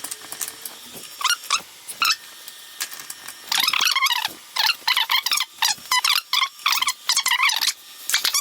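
3D printer stepper motors singing in short, squeaky, pitched bursts that glide up and down as the print head and belt start, move and stop.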